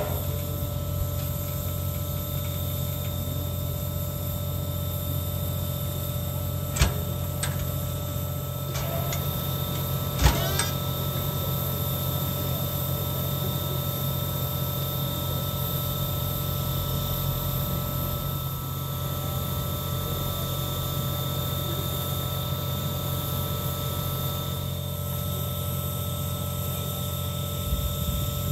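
Steady mechanical hum with a constant whine from a standing train, broken by a few sharp metallic knocks, the loudest about 7 and 10 seconds in.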